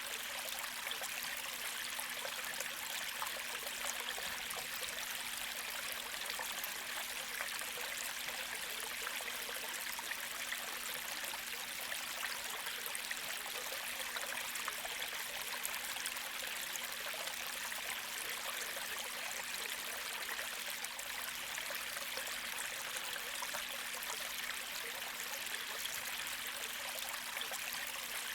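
Gentle creek flowing: an even, steady rush of water with a light trickle.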